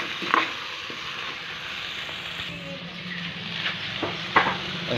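Squash, eggplant and okra sizzling in a hot pot while being stirred, with a few short scrapes and knocks of the spatula against the pot.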